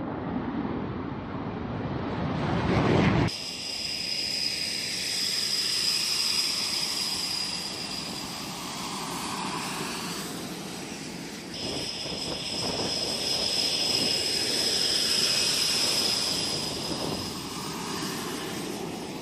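Panavia Tornado's twin RB199 turbofan engines roaring at takeoff power, rising in level, then cutting off abruptly about three seconds in. After that, the high steady whine of a Tornado's jet engines running on the ground close by, with a sudden shift in the whine about eleven seconds in.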